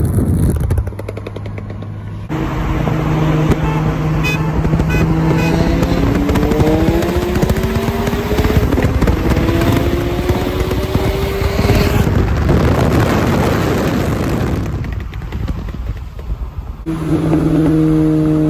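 Car engine on a hard highway pull: a steady drone, then an engine note climbing steadily for several seconds as the car accelerates. Heavy rushing wind and road noise follow, and a steady engine drone comes back near the end.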